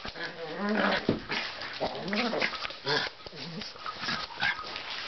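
Pug puppy making a string of short whimpers and small growls while playing, with a few knocks in between.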